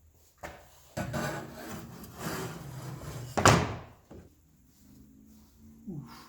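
One-man crosscut saw rasping through wood in a few long strokes, the loudest stroke about three and a half seconds in, followed by a few quieter knocks.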